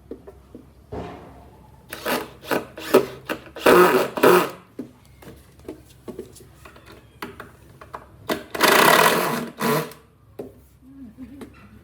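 Hand tools working wood: scattered knocks and several bursts of rough noise, the longest about a second and a half a little past the middle.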